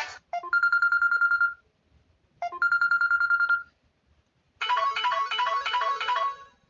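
Samsung Galaxy Pocket ringtones playing. A guitar tune cuts off at the start, then a trilling electronic ring sounds twice, each a quick pickup note into a fast-pulsing high note. About four and a half seconds in, a quicker repeating melodic phrase follows.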